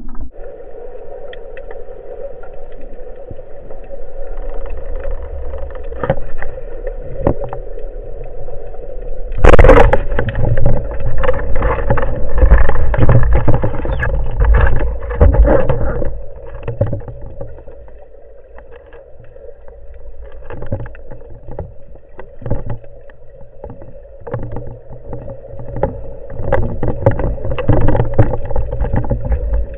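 Underwater sound through a speargun-mounted camera: a steady hum and water noise, a sudden loud burst about a third of the way in, then churning water with many knocks and clicks as the speared fish is handled.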